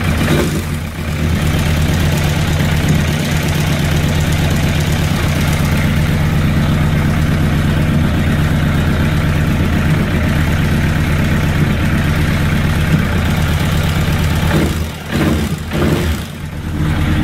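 Motorcycle engine idling steadily but rough, misfiring on one cylinder so that it is only running on three cylinders, a sign of a faulty ignition coil or HT lead. The level dips a few times near the end.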